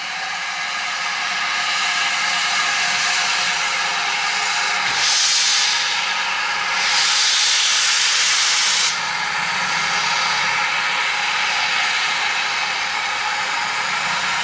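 Steam locomotive blowing off steam: a steady hiss, with two louder bursts of high hiss about five and seven seconds in.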